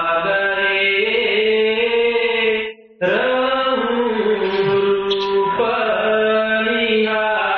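A man's voice chanting a devotional hymn line in long, held notes, with a short break for breath about three seconds in.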